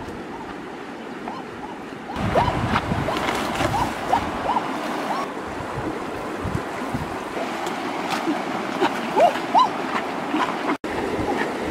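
River water splashing and churning from about two seconds in, with many short bubbly plips, as a large fish moves at the surface.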